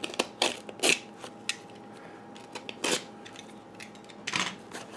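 A cardboard shipping package being opened: scattered crackles, scrapes and rustles of cardboard and packing, with sharper bursts near the start, about three seconds in and near the end.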